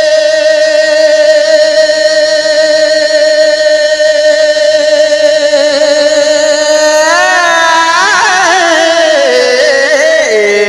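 A man singing a naat, holding one long, steady note for about seven seconds. He then breaks into wavering melismatic runs that step down in pitch near the end.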